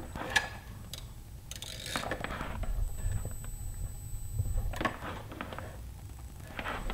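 Arris NVG589 modem/router giving off a steady high-pitched whine, which the owner puts down to a fault in units of that model from a certain production period. Over it come handling noises: clicks, rubbing and knocks as the unit is lifted and moved about.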